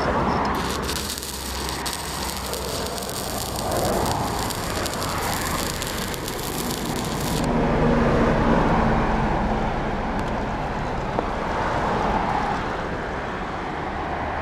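Stick-welding arc crackling and sizzling as a steel door hinge is tack-welded to a gate post, run from a Resanta SAI-190 inverter on a 2 mm electrode. The sharp hiss starts under a second in and cuts off about seven and a half seconds in.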